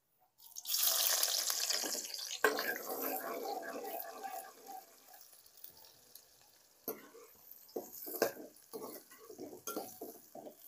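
Chopped onions going into hot oil in a steel pot on a gas stove, sizzling loudly at once, with a second burst about two and a half seconds in as more goes in, then fading. Scattered light knocks follow near the end.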